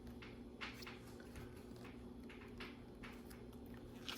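Faint, scattered clicks and taps of small plastic LEGO pieces being handled and pressed into place.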